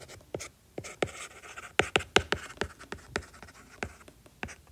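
Stylus handwriting on a tablet screen: an irregular run of sharp clicks as the pen tip taps down, with a brief scratchy stretch about a second in.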